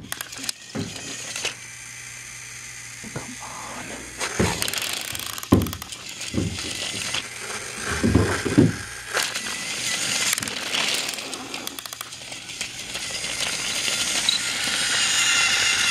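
Battery-powered toy train running on plastic track: a small electric motor whirring and plastic wheels clattering, with scattered clicks and knocks, getting louder over the last few seconds as the train comes past.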